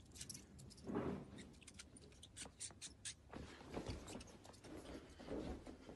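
Faint scuffs and soft thumps of a person moving and stepping on a carpeted floor, with a few light clicks.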